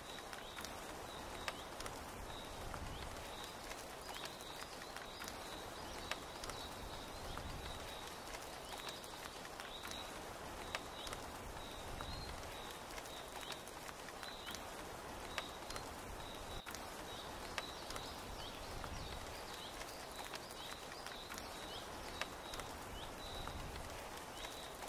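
Steady rain falling, with a sharp drip ticking every few seconds and a short high chirp from a small creature repeating over and over, a little more than once a second.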